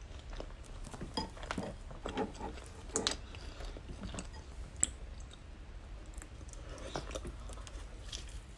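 Close-up chewing of a mouthful of savory bread bun: irregular soft chewing and mouth sounds, with one sharp click a little past the middle.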